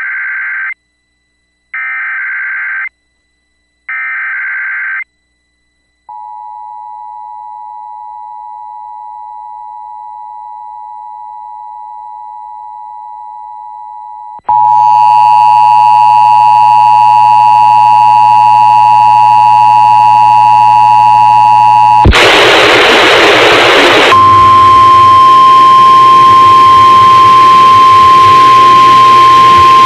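Emergency Alert System signals. Three one-second bursts of the screeching digital header are followed by the steady two-tone attention signal. Partway through, the attention signal comes back louder and distorted with a hum underneath. After a short burst of static, a single steady alert tone sounds.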